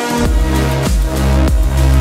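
Background electronic dance music; a heavy bass line and a steady beat, about one every 0.6 seconds, come in just after the start.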